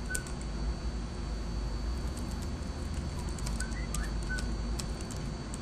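Computer keyboard keys clicking in an irregular run as a web address is typed, over a steady low hum.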